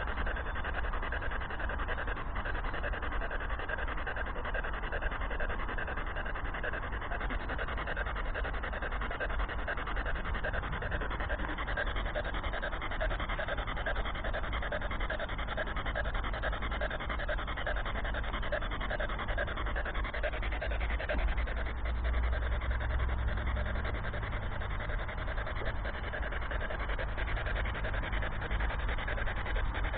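Spirit box, a hand-held radio that sweeps rapidly through stations, giving off a steady static hiss.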